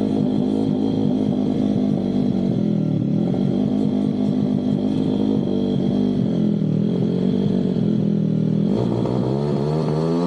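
Pit bike's single-cylinder four-stroke engine running on its newly installed carburettor, holding a fairly steady speed with slight wavering, then revving up near the end.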